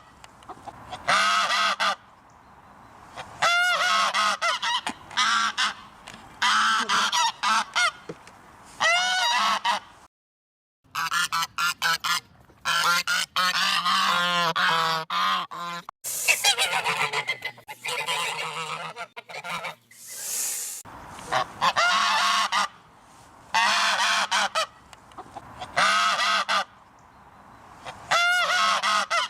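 Geese honking in repeated bouts of harsh, loud calls, several birds overlapping in a dense chorus through the middle. The sound drops out completely for about a second roughly ten seconds in.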